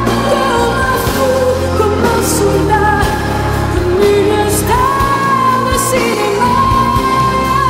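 A song with a singer holding long, gliding notes over a steady bass line.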